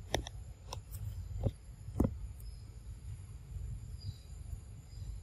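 About half a dozen sharp clicks and cracks in the first two and a half seconds, the loudest about two seconds in, from a pig-tailed macaque handling and cracking peanuts in their shells. Under them runs a faint steady high insect drone.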